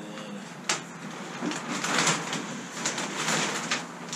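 Stiff sailcloth rustling and crinkling in uneven swells as it is handled and gathered around a wooden spar, with one sharp tap a little under a second in.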